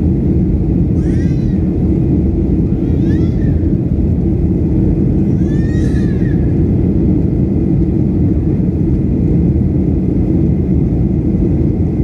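Airliner cabin noise in flight: a steady low drone of jet engines and airflow heard from a window seat. Three brief, high, wavering cries rise above it about a second, three seconds and six seconds in.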